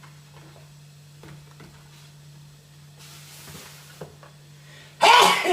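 Faint clicks and handling sounds over a steady low hum, with a brief hiss about three seconds in, then a loud burst of a man's voice near the end.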